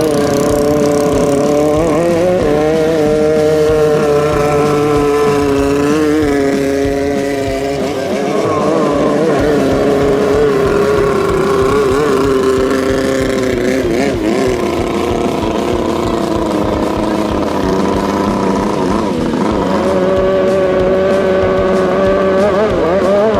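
Racing speedboat engines of the Jet 650 class running hard and continuously, several engine notes overlapping with their pitch rising and falling as the throttle changes.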